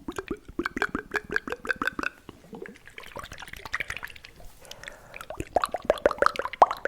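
Fast, wet ASMR mouth sounds made close to the microphone: rapid tongue clicks and hollow mouth pops, several a second. In the middle they give way to a wetter, slurping stretch before the quick pops pick up again.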